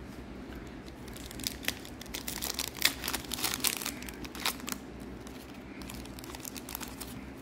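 Foil wrapper of a 2021 Score football card pack being torn open and crinkled by hand: a run of sharp crackles and rips that starts about a second and a half in and dies away after about five seconds.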